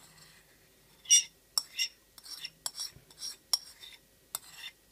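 A metal spoon scraping and clinking against the inside of a ceramic bowl as a thick, wet mince mixture is scooped out: a quick, irregular run of sharp scrapes and taps, the loudest about a second in.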